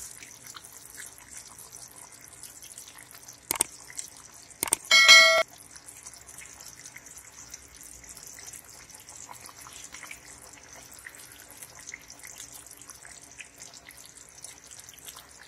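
Gravy simmering in a pan, with a steady faint bubbling and popping. A couple of sharp knocks come about three and a half seconds in, then a short, loud metallic clink that rings for about half a second, as boiled eggs go into the pan.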